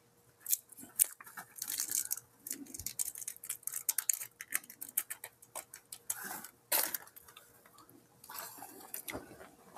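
Small plastic ketchup dip cup being peeled open by hand: a run of irregular crinkling clicks and ticks as the peel-back lid is worked loose and pulled off, with a louder crackle about seven seconds in.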